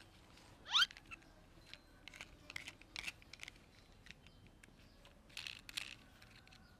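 Quiet handling noises: scattered light clicks and rustles as a small plastic toy is turned over in a child's hands, with a brief rising squeak about a second in.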